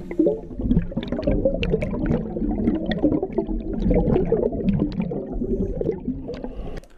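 Muffled underwater bubbling and gurgling, with irregular pops and clicks, from a scuba diver's exhaled bubbles.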